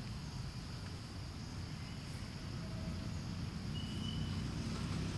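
Outdoor background: a steady low rumble with a faint high insect buzz, and an engine hum that grows louder over the last second or two. A short high whistle about four seconds in.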